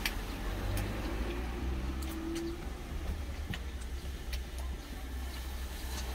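Steady low rumble inside a truck cab, typical of the engine idling, with scattered small clicks of a man chewing food.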